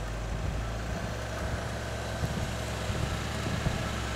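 A vehicle engine running steadily while a snow-buried SUV is towed out of deep snow.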